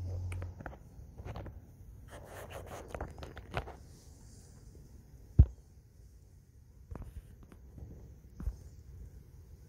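Faint scattered rustling and clicking from a handheld phone being moved and handled, with one sharp click about five seconds in. A low hum fades out in the first half second.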